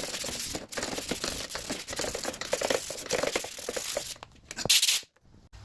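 Light sandpaper rubbed by hand over a metal face of an electromagnetic PTO clutch, quick rough scratching strokes to clean off surface dust. The strokes stop shortly before the end, with one short sharp rustle.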